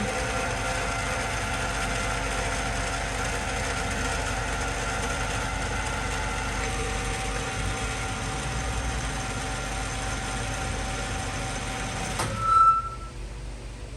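Hardinge HLV-H tool room lathe running steadily in threading feed, its spindle and lead-screw gearing giving a steady mechanical whine. About twelve seconds in it shuts off with a brief louder squeal, and only a quiet hum remains.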